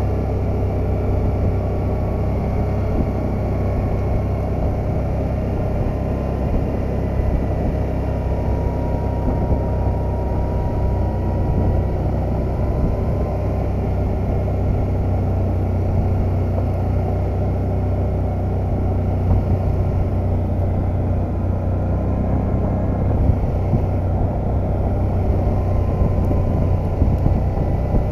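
ATV engine running steadily while riding at an even speed, a low drone with the tyres rolling over a gravel road. A faint whine drifts slowly in pitch.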